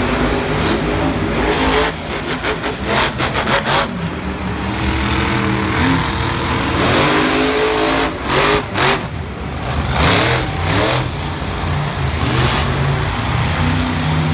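Monster truck's supercharged V8 engine revving hard, its pitch rising and falling as the truck drives and jumps, with two stretches of rapid sharp crackles about two and eight seconds in.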